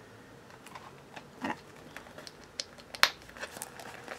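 Two zippered pouches being handled: light rustling and several small clicks, the sharpest about three seconds in, as their metal clips are fastened to join them.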